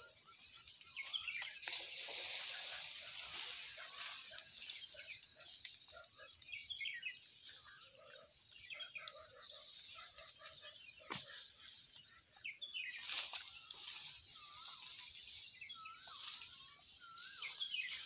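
Birds chirping and calling in the background, with short chirps scattered throughout and a run of wavering calls near the end, over a steady high hiss. Two brief louder noisy bursts, one near the start and one about two-thirds through.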